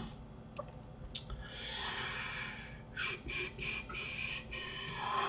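A man breathing close to the microphone: a long breath about one and a half seconds in, then four or five short, quick breaths.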